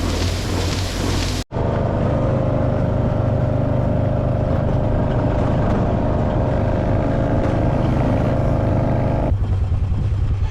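Steady machine drone with several held tones, starting after a sudden cut about a second and a half in. About nine seconds in the higher tones drop away, leaving a lower drone that pulses.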